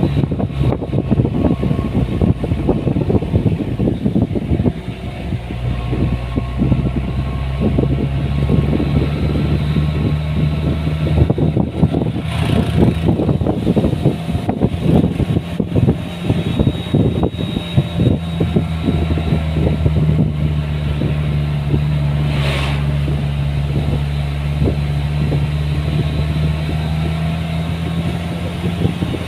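An engine running at a steady speed, with irregular buffeting noise over it, heaviest in the first few seconds.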